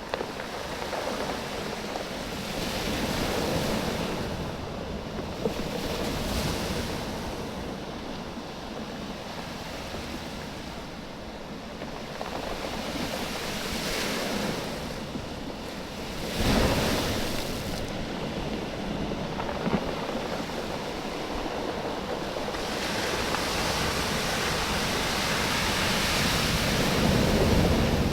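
Small waves washing in and out over a beach of oval cobbles, the stones clattering and clicking against each other as the water surges and draws back. The wash swells and fades every few seconds, with a stronger surge a little past halfway.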